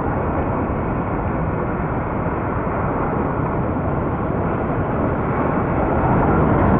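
Breaking surf and rushing water heard from a camera down at water level in the waves: a steady, dense wash of noise.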